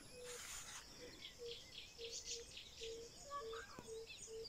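Birds calling: one repeats a short, low note over and over, about three times a second, while higher chirps and twitters go on above it, with a brief rising call a little after the middle.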